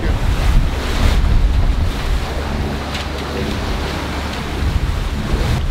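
Strong wind buffeting the microphone over the rush of the sea on the deck of a sailing catamaran under way, with a few sharper gusts early on and about three seconds in.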